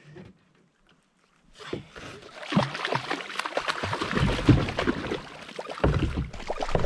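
Water splashing around a fishing kayak, with irregular knocks and rattles against the hull, starting after about a second and a half of near silence.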